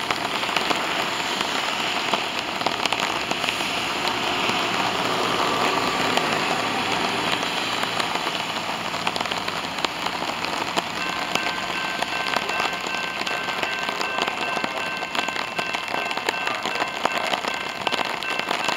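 Steady rain falling, with a dense patter of small drops striking wet surfaces.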